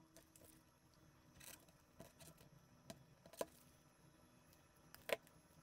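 Faint bench handling: a utility knife cuts the rubber strain-relief boot of a DC plug, with a soft scrape about a second and a half in and a few sharp clicks, the loudest near the end.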